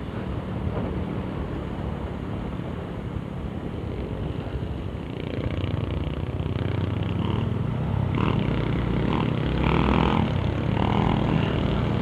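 Honda RS 125 Fi's single-cylinder four-stroke engine running under way, freshly tuned, with wind and road noise. The engine gets louder in the second half as the bike picks up speed.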